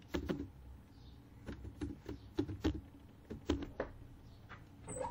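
Typing on a computer keyboard: about a dozen sharp keystrokes in short, irregular runs as a word is entered.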